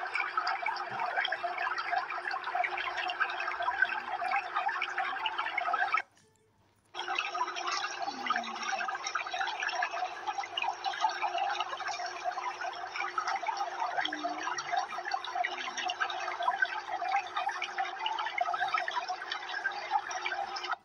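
Aquarium water bubbling and trickling in a steady, dense fizz; it cuts out for about a second around six seconds in, then resumes.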